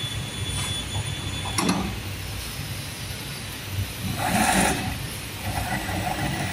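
Mattress tape-edge sewing machine running as it stitches the border tape onto a mattress edge: a steady low mechanical running noise, with a sharp click about a second and a half in and a brief louder burst of noise around four seconds in.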